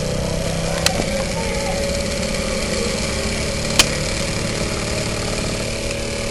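MEC 1 model steam engine running steadily under steam, with a fast even beat, and two sharp clicks, one about a second in and one near four seconds.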